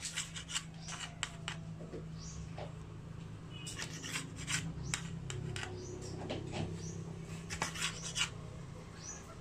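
Kitchen knife sawing through the crusts of sliced white bread, its blade scraping on a ceramic plate in a run of short, scratchy strokes.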